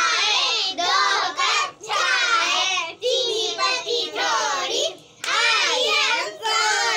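A group of children singing together in short phrases, several high voices at once.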